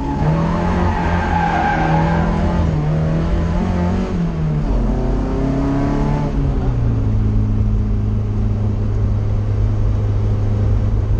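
SEAT 1430's four-cylinder engine heard from inside the car: its note rises and falls as it changes speed for the first six seconds or so, then holds at one steady pitch.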